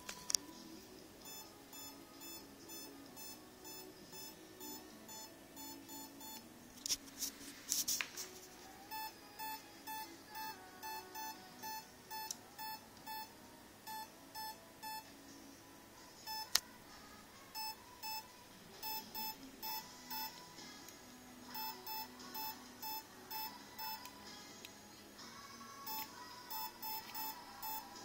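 Electronic speed controller (ESC) beeping in runs of short, even tones, about two a second, with pauses between runs: the signal that the radio stick is held at its high or low position. A brief rustle about seven seconds in and a couple of sharp clicks.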